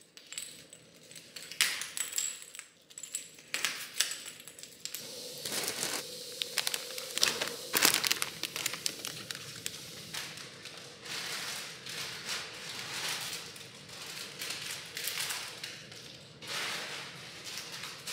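Plastic party decorations and their packaging being handled: irregular clicks and light clatter of plastic pieces knocking together, with crinkling of wrapping.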